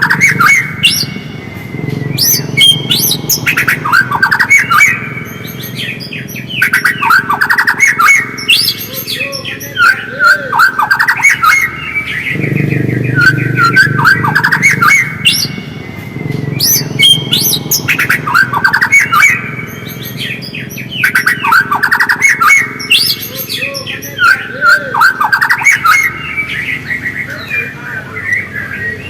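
White-rumped shama (murai batu) singing in rapid chattering, twittering phrases that repeat over and over, with a low background rumble underneath.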